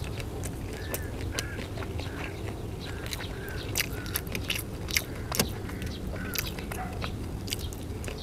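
A person chewing grilled sausage close to the microphone: wet smacking and sharp mouth clicks, irregular, with a few louder ones about four to five and a half seconds in.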